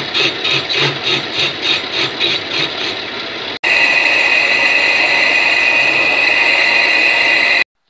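Homemade metal lathe cutting a spinning steel workpiece, with a pulsing scraping noise about three or four times a second. About three and a half seconds in it breaks off sharply and gives way to a steady high-pitched whine as a bar tool cuts inside the bore. The whine stops abruptly shortly before the end.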